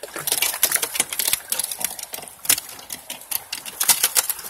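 Quick, irregular metallic clicking and clatter: the sluice box's clips being worked and snapped into place to hold the riffles and matting.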